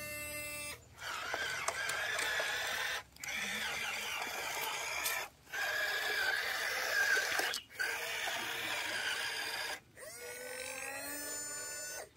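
Remote-control toy excavator's small electric motors and plastic gears whirring with a wavering whine, in stretches about two seconds long broken by short sudden breaks.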